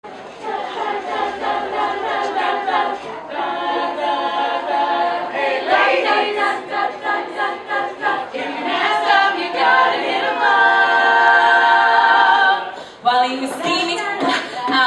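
Women's a cappella group singing in close harmony, voices only. Chords change every second or so, then a long chord is held near the end before a short break and the singing starts again.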